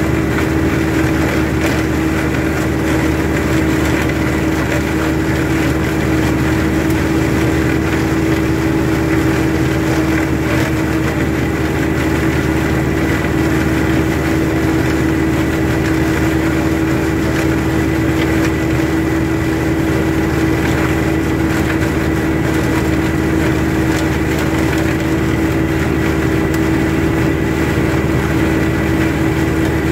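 Tractor engine running steadily under load, driving a flail mower as it cuts grass: a constant, loud mechanical drone with a thin high tone over it.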